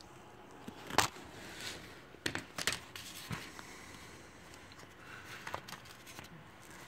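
Scattered light clicks and taps of hand tools and handling at work. The sharpest click comes about a second in, with a quick cluster a little after two seconds.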